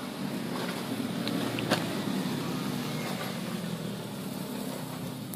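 A steady low motor hum, with a single sharp click a little under two seconds in.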